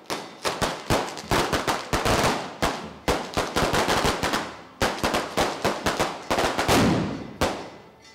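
A string of castagnole firecrackers exploding in rapid, irregular volleys of sharp bangs, several a second, which stop about seven and a half seconds in.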